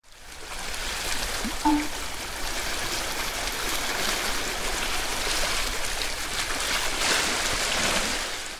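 Seawater lapping and splashing against a harbour quay: a steady wash of small splashes that fades in at the start and out at the end, with one short squeak about a second and a half in.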